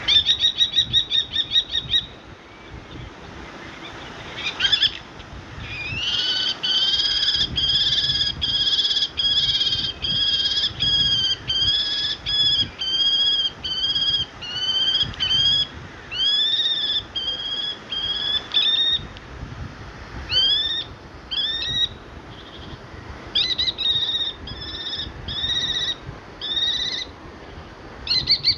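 Common kestrel calling: a fast run of high notes, then a long series of separate high call notes that curve upward, about two a second. The series breaks off now and then and picks up again.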